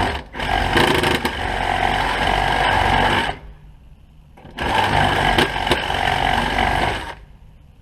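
Power drill running twice, each time for about three seconds with a short pause between, drilling out a hole in the broken corner piece of a Holley carburetor throttle plate.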